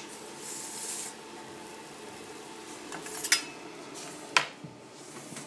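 A toasted sandwich scraped off the conveyor toaster's stainless steel shelf, then two sharp clinks of plate and knife, the second the loudest, over the steady hum of the running conveyor toaster.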